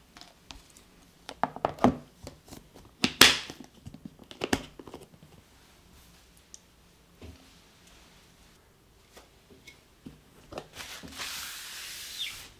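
Glass food-storage container and its snap-lock plastic lid being handled: a series of sharp clicks and knocks, the loudest about three seconds in, then a few lighter knocks. A brief rustling hiss near the end.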